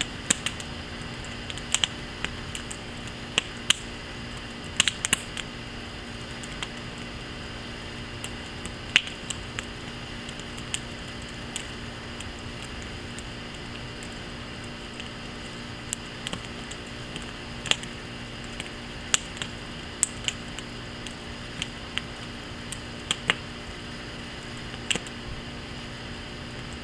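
Tee-pee stacked wood fire in a firepit, crackling with irregular sharp snaps and pops, a few much louder than the rest, over a steady hiss.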